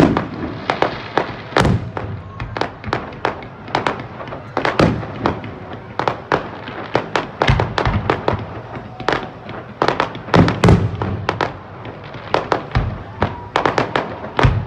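Aerial fireworks going off: a rapid, irregular string of sharp bangs and crackles, with deeper booms mixed in among them.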